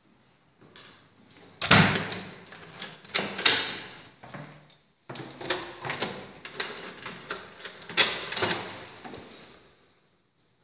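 An interior door being opened and knocked against, with a run of loud clattering knocks, the strongest about two, three and a half and eight seconds in.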